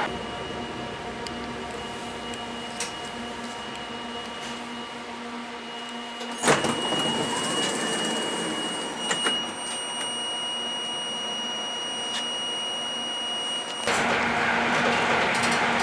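Inside a regional train carriage: a steady hum from the train's equipment with several fixed high whining tones. A sharp clunk comes about six and a half seconds in, more high tones join after it, and near the end the louder rumble of the train running on the rails abruptly returns.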